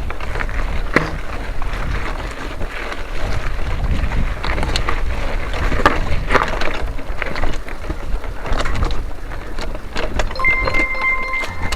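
Wind buffeting the microphone in a steady low rumble, with scattered sharp knocks and rattles. A steady tone with a higher overtone comes in near the end.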